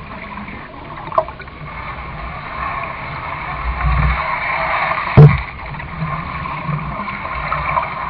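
Canoe being paddled: water splashing and trickling around the paddle and hull, with a loud knock about five seconds in.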